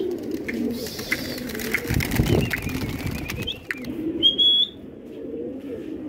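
Domestic pigeons cooing, with a burst of wing flapping about two seconds in as the flock takes off from the ledge. A short high whistle sounds a little after four seconds.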